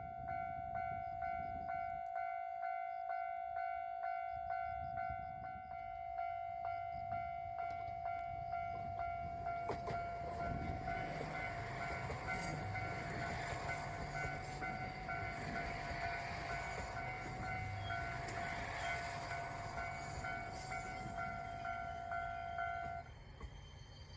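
Japanese level-crossing warning bell ringing with a steady, regular ding. About ten seconds in, a diesel train passes over the crossing with a rising rush of engine and wheel noise. The bell stops near the end.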